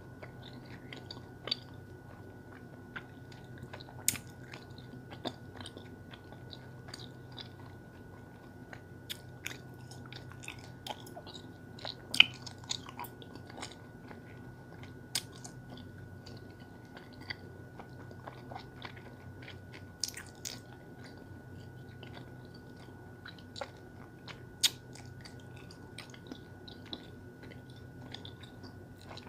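Bubble gum being chewed: irregular wet clicks and smacks of the mouth, over a faint steady hum.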